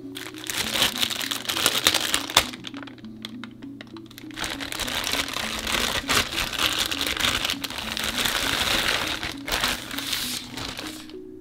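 Clear plastic bag crinkling and rustling as it is handled and pulled off a rifle scope, in two long stretches with a short lull about four seconds in, over background music.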